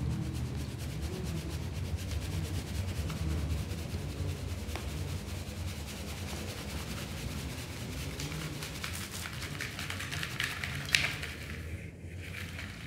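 Fine powdered cleanser and baking soda being sifted through a plastic colander shaken over a bowl: a soft, rapid rubbing and rattling hiss of powder streaming through the holes. There is one sharp knock near the end.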